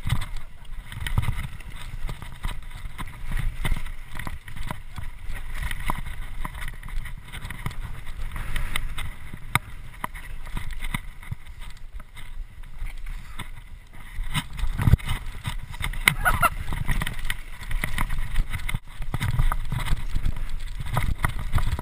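Mountain bike riding down a rough dirt singletrack: wind buffeting the rider-mounted camera's microphone with a steady low rumble, over the bike's constant rattle and clatter of chain and frame on the bumpy trail. It grows louder past the middle and again near the end as the speed picks up.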